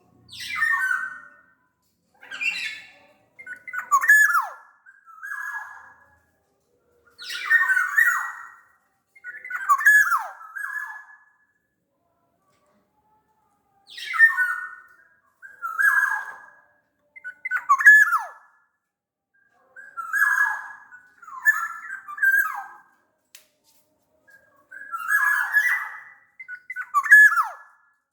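Sumbawa kepodang (black-naped oriole) calling: short, harsh, downward-slurred calls repeated every second or two. There is a pause of about three seconds roughly halfway through and another a few seconds before the end.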